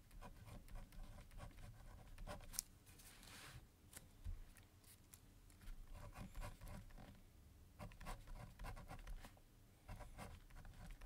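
Faint scratching of a pen writing by hand on paper, in short, irregular strokes.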